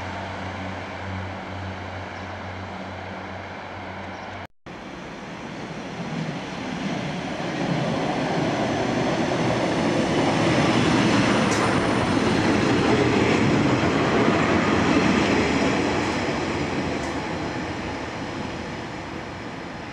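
Class 142 Pacer diesel multiple unit running in along the track. Its rumble builds to its loudest about halfway through as it passes close, then eases as it draws along the platform. There is a brief break in the sound about four seconds in.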